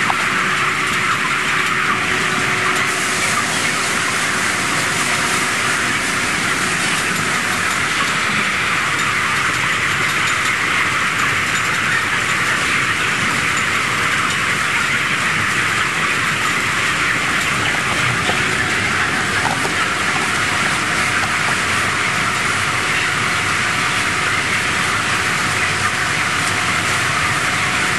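Steady din of a crowded broiler chicken flock, a dense mass of high cheeping and calling with no single bird standing out, over a faint steady hum.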